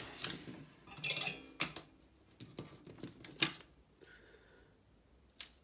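Light clicks and knocks of hard plastic model-locomotive parts being handled, a Lima 00 gauge chassis and its motor bogie being freed of their wires, with one sharper knock about three and a half seconds in.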